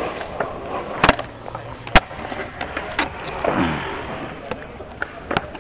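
Skateboard wheels rolling on concrete, with several sharp clacks of the board, the loudest about two seconds in.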